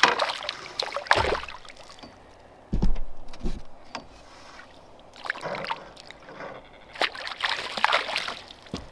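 A hooked crappie splashing and thrashing at the water's surface, with more splashing near the end as it is scooped into a landing net. There is a single low thump about three seconds in.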